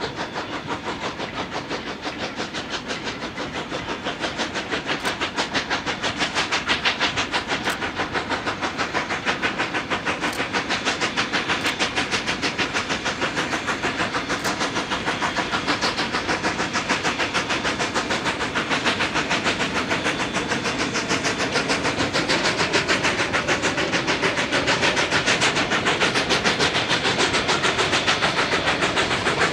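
Two narrow-gauge DRGW K-36 Mikado steam locomotives working hard at the head of a freight train, their exhausts beating in a rapid, even chuffing that grows louder as they draw near.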